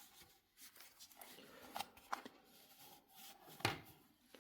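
Faint rubbing of a cloth rag wiping a plastic kettle-base part, with a few light clicks of the part being handled and one sharper knock about three and a half seconds in.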